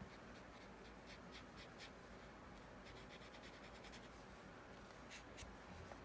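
Faint paintbrush strokes on watercolour paper: a series of short, soft brushing scrapes as the bristles are drawn across the paper.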